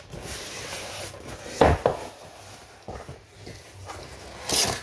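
Boxed toy packaging being handled: rubbing and scraping against the box, with two louder knocks, one about one and a half seconds in and one near the end.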